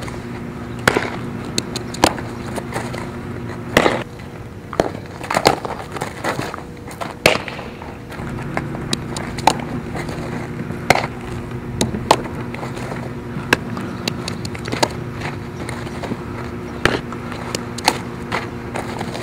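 Softball fielding drill: repeated sharp pops of the ball smacking into leather gloves, about one a second, with cleats scuffing on the dirt infield, over a steady low hum.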